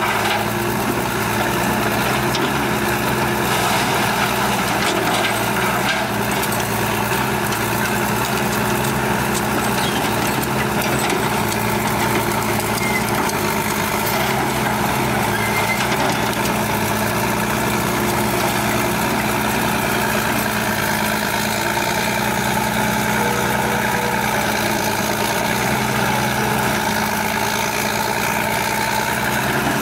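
Heavy diesel machinery running steadily at a constant pitch, the engines of an excavator feeding a wood grinder.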